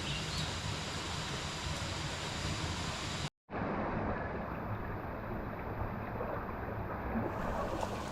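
Steady rushing of flowing water from a waterfall or mountain stream, cut off by a split second of silence about a third of the way in, then going on.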